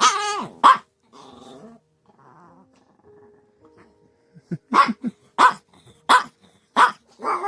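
Chihuahua growling quietly, then barking sharply about six times in the second half, roughly one bark every two-thirds of a second.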